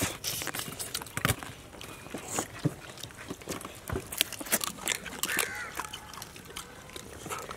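Close-up eating sounds of crab being bitten and chewed: shells crunching and cracking between the teeth, heard as irregular sharp crackles.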